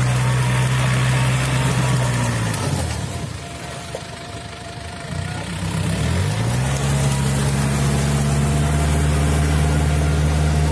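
Yanmar EF453T tractor's diesel engine running while it pulls a rotary tiller through paddy mud. About two and a half seconds in, the engine speed drops and it runs quieter for a few seconds, then it revs back up and holds steady.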